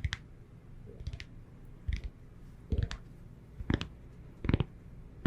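A series of close-miked soft clicks, each with a dull low thump under it, coming about once a second.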